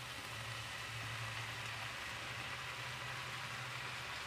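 Faint steady sizzling of dried fish and potato pieces frying in oil in a pan, with a low steady hum underneath.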